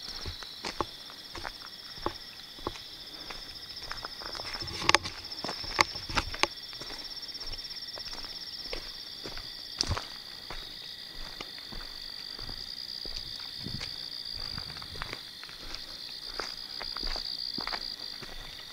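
Footsteps crunching through dry leaves and forest litter at an irregular walking pace, over a steady high trill of night insects. The steps are loudest and closest together about five to six seconds in.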